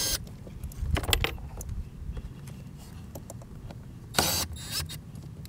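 Milwaukee M12 cordless driver running in brief bursts, once right at the start and again about four seconds in, driving fasteners in a battery compartment. Between the bursts come metallic clicks and clinks of the socket, tool and cable terminals, over a low steady rumble.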